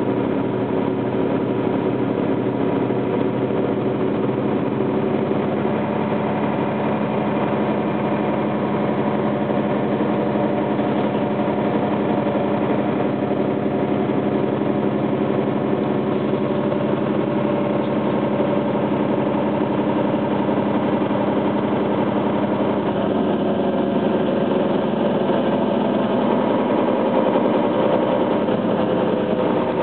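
Mercedes-Benz Citaro city bus driving along at a steady pace, heard from inside the passenger cabin: an even engine hum with road and tyre noise.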